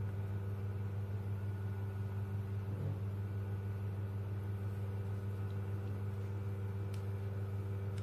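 A steady low electrical hum, with a faint click about seven seconds in.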